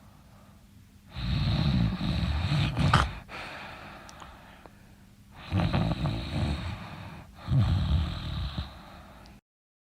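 Snoring: three loud, rough, rattling snores, the first starting about a second in and the last two close together in the second half.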